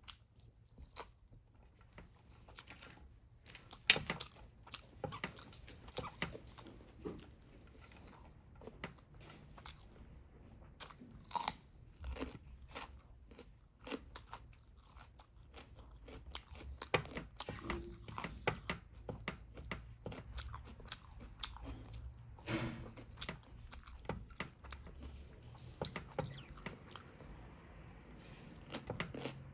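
A person eating close to the microphone: irregular crunching, biting and chewing, with many sharp mouth clicks in quick succession.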